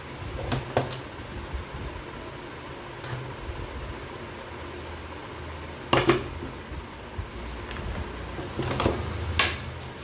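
Short clicks and rustles of hands handling stiff wires, lugs and tools on an electrical control panel, over a steady low hum. The loudest clatters come about six seconds in and again near the end.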